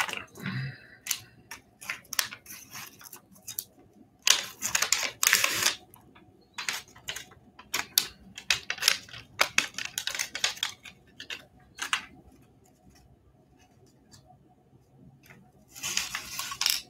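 Waxed paper wrapper of a 1954 Bowman baseball card pack crinkling and crackling as it is peeled open and handled by hand. The crackles come in clusters, loudest about four to six seconds in and again near the end, with a quieter spell shortly before that.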